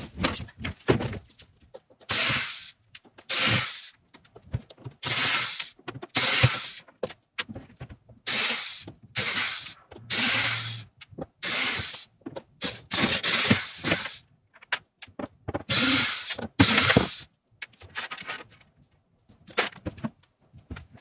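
Handheld power driver running in about a dozen short bursts of half a second to a second each, with pauses between, as screws are backed out of a wooden bed frame being taken apart.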